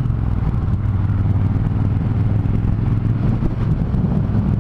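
Triumph Thunderbird Storm's big parallel-twin engine running steadily under way, with wind rush over the microphone.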